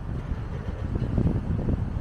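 Wind buffeting the microphone: an irregular low rumble in gusts, strongest around a second in.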